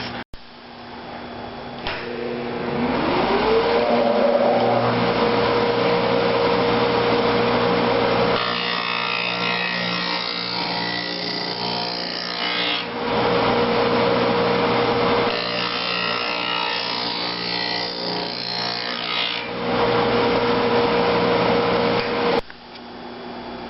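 Blademaster SH5000 skate sharpening machine: its grinding-wheel motor spins up with a rising whine and then runs steadily. A skate blade is drawn against the wheel in two passes of a few seconds each, heard as a louder rasping grind, and the motor then shuts off suddenly.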